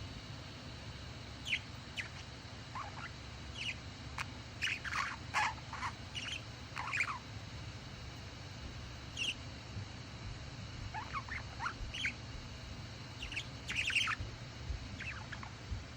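English budgie (budgerigar) making soft, short chirps and squeaks, many falling in pitch, in irregular small clusters, over a low steady hum.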